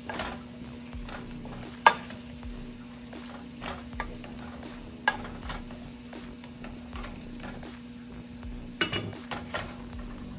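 Utensil stirring and knocking in a pan of seasoned food simmering with a faint sizzle. There are scattered sharp clacks: the loudest about two seconds in, and a quick cluster near the end. A steady low hum runs underneath.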